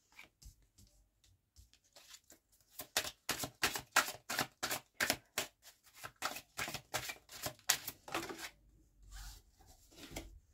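Oracle cards being dealt one after another onto a table, a quick run of sharp card flicks and slaps about three to four a second, starting about two and a half seconds in and thinning out after about eight seconds.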